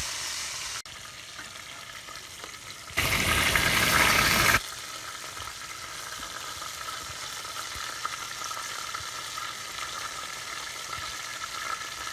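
Pork stomach pieces deep-frying in hot oil: a steady sizzle. About three seconds in, a much louder stretch of sizzling lasts about a second and a half, starting and stopping abruptly.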